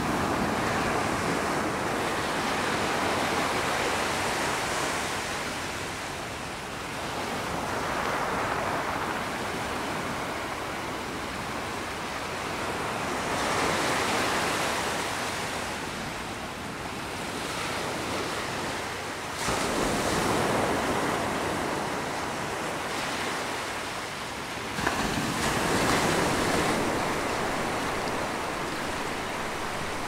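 Ocean surf: waves breaking and washing in, the rush swelling and falling away every five or six seconds. Two of the waves come in suddenly, about twenty seconds in and again five seconds later.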